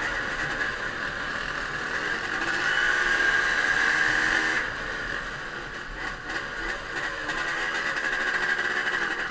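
Trail motorcycle engine running steadily, getting louder for a couple of seconds around the middle and then easing off.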